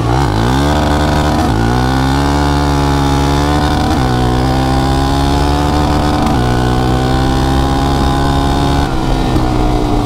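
Suzuki LT-Z400 quad's single-cylinder four-stroke engine under hard acceleration. Its pitch climbs steeply over the first two seconds, then stays high, with brief dips about four, six and a half and nine seconds in.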